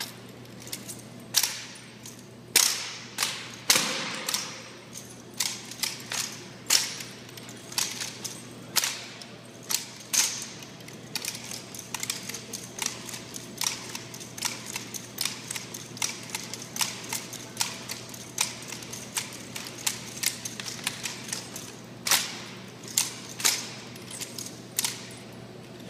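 Ceremonial rifle drill: an irregular, fast series of sharp slaps and clacks as hands strike the rifles while they are spun, tossed and caught, with louder cracks now and then.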